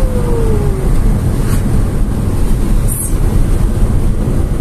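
Steady low rumble of a car's tyres and engine at road speed, heard from inside the cabin. A brief falling tone sounds near the start, and a short tick comes about three seconds in.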